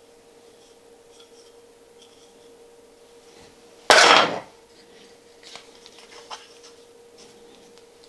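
A wooden strip is set down on a workbench with one sharp clatter about four seconds in. Quieter knocks come from the wood and tools being handled, over a faint steady hum.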